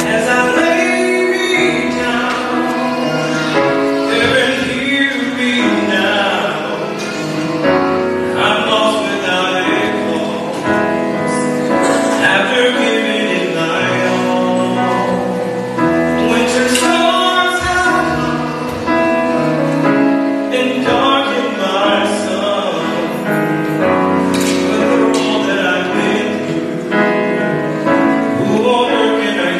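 Grand piano playing continuously, with voices singing along.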